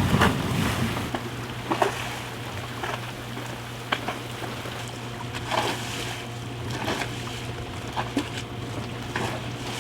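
Storm wind and choppy water around an anchored boat, with a steady low hum and irregular short knocks and slaps every second or so. A louder low rumble fades during the first second.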